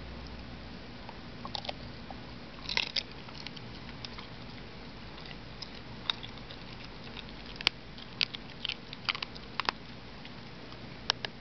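Wire fox terrier chewing a raw chicken drumstick, the bone cracking in irregular, sharp crunches that come in a few short flurries.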